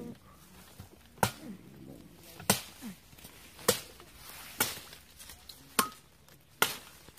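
A hand tool striking repeatedly: six sharp chops, about one a second.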